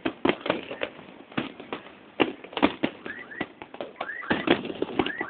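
Fireworks going off: a rapid, irregular string of sharp bangs and crackling pops, with a few short rising squeals in the second half.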